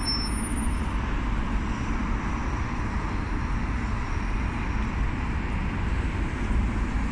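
Steady city road-traffic noise, an even hum of passing vehicles with no distinct events.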